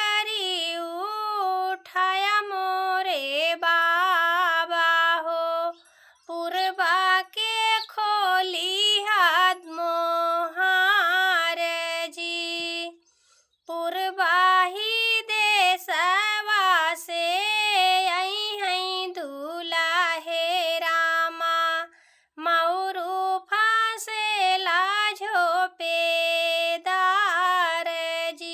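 A woman singing a vivah geet, a North Indian folk wedding song, solo with no accompaniment. She sings in long held phrases, with brief pauses for breath about six, thirteen and twenty-two seconds in.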